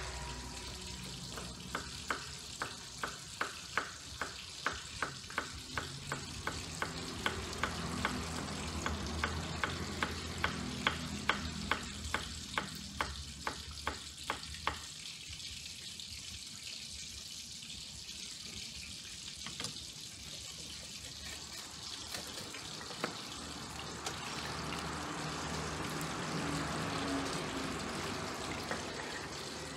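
A large kitchen knife chopping green beans on a round wooden chopping block, in sharp even strokes about three a second that stop about halfway through. Near the end, hands swish green onions around in a steel bowl of water.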